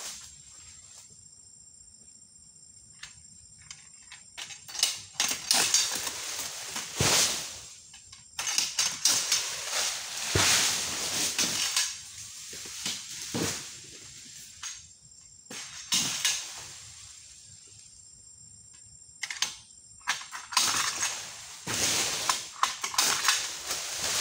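Oil palm fronds being pruned with a pole-mounted sickle: bouts of crackly rustling and snapping as fronds are cut and crash down through the leaves, with a few sharp knocks. A steady high insect drone fills the gaps between bouts.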